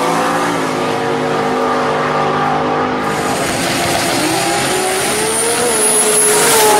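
Car engine running and revving, several steady tones that rise a little in pitch past the middle, with a thin high whine climbing near the end.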